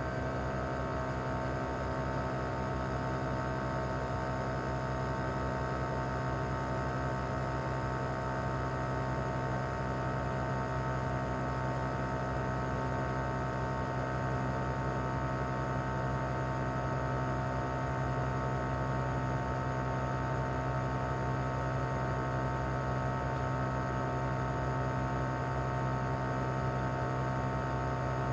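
Mitsubishi Heavy Industries SRC2221T air conditioner outdoor unit running steadily in cooling mode: its inverter-driven single rotary compressor and propeller fan give a steady hum with several fixed tones over it and no change in speed.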